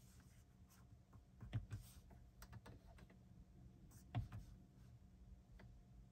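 Faint clicks of the buttons and rotary knob on a Volkswagen Golf's dashboard infotainment unit being pressed and turned: a few scattered clicks, the loudest about four seconds in.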